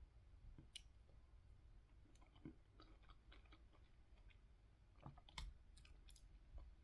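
Near silence with faint, scattered clicks and chewing: a fork picking at mango and pineapple chunks in a plastic container, and soft chewing of the fruit.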